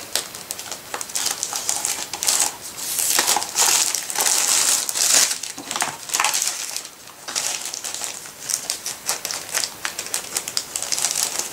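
Thin plastic sheet protectors rustling and crinkling as clear stamp sets in hard plastic cases are slid in and handled, with many small clicks and taps. The rustling is loudest for a stretch about three to five seconds in.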